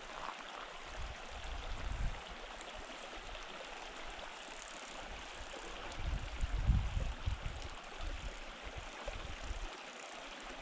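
Small mountain creek running over rocks: a steady, even rush of moving water. About six to seven seconds in, low rumbling bumps rise over it.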